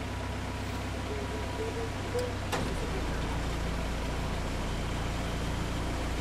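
A motor cruiser's engine running slowly with a steady low hum. A click comes about two and a half seconds in, after which the hum shifts to a different, steadier tone.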